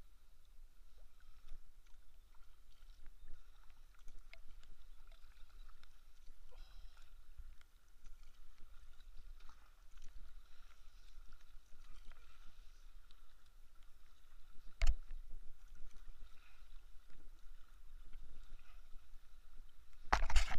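Kayak paddling on a lake: the blades dipping and drawing through the water with small splashes and drips, and water lapping at the hull over a low steady rumble. A single sharp knock about 15 seconds in, and louder water noise near the end.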